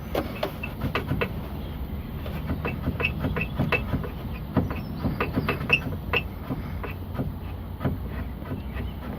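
Smart Roadster's rear panel squeaking and creaking, short irregular squeaks and clicks, some high-pitched, over the steady low rumble of the running car.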